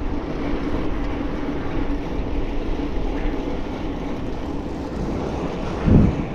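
Steady rush of wind and tyre noise from a bicycle riding along an asphalt road, with a faint steady hum. The wind hits the microphone harder about six seconds in.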